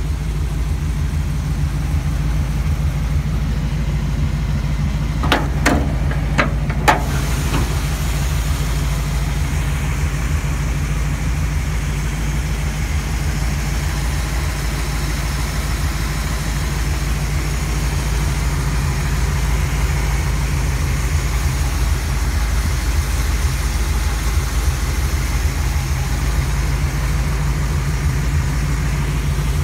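GM 350 small-block V8 idling steadily, with a few sharp clicks about five to seven seconds in.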